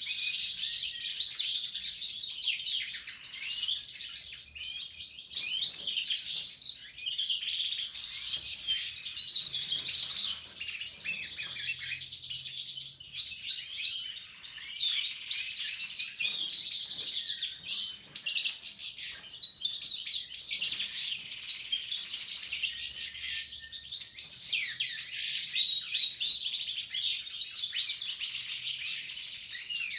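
Caged goldfinches and canaries singing together: dense, continuous twittering and warbling with many quick trills and slurred notes, several birds at once.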